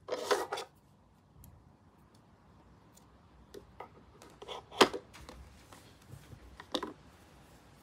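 A few sharp clicks and light taps from scissors snipping the yarn and being handled, then set down, as the crochet work is fastened off; the loudest is a single sharp click just under five seconds in.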